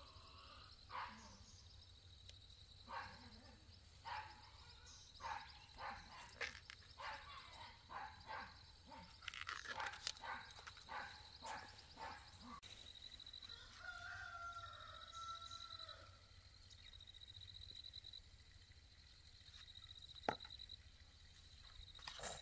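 Faint outdoor sounds: a steady high buzzing trill, a run of short knocks over the first half, and a drawn-out animal call about two-thirds of the way in.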